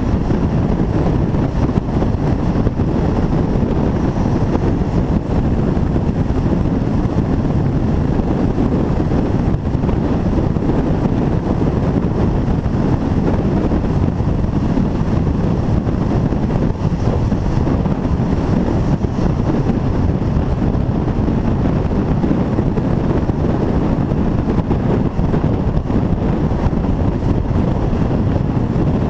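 Steady wind rush on the microphone of a camera mounted outside a moving passenger train, over the train's low running and rolling noise on the rails.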